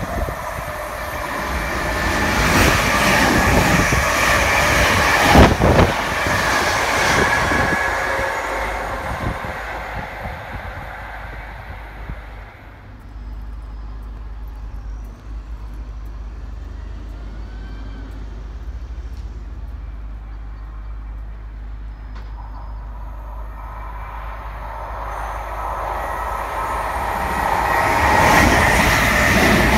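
An electric multiple-unit train running past with a motor whine and a sharp clunk about five seconds in, fading away by about ten seconds. After a quieter spell of low steady rumble, a Class 321 electric unit approaches and grows louder near the end.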